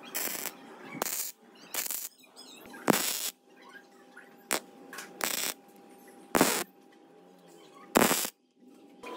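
MIG wire-feed welder laying a row of short tack welds on a steel drive-shaft tube: about eight brief bursts of arc noise, each well under half a second, with pauses between them.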